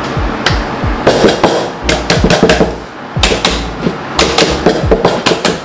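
Clusters of sharp knocks and taps from a baking pan and utensils as thick fruit cake batter is worked into the pans, over background music with a steady beat.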